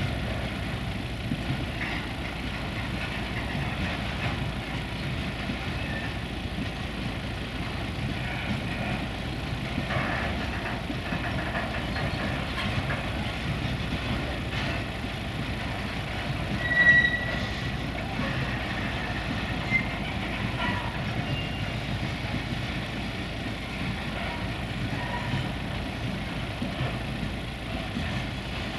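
Empty skeletal container flat wagons of a freight train rolling past, steady wheel-on-rail noise, with one short high-pitched wheel squeal about seventeen seconds in.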